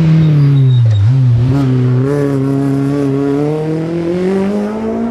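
Rally car engine on a special stage: the revs drop about a second in, then climb steadily in one long pull under acceleration.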